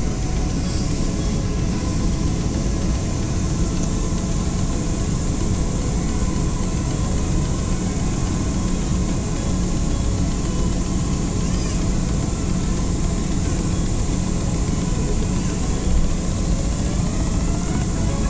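Steady engine and cabin noise inside a passenger airliner as it taxis before take-off, with a faint whine rising slowly in pitch in the last few seconds.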